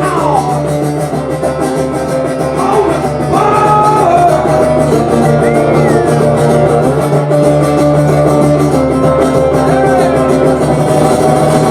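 Live blues guitar playing, with held notes over a steady low note and several notes that slide and bend in pitch.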